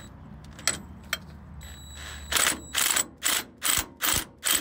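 Hand ratchet wrench worked in quick back-and-forth strokes on the differential's pinion yoke bolt, a short rasp of pawl clicks about two and a half times a second from about halfway through, after a few single clicks.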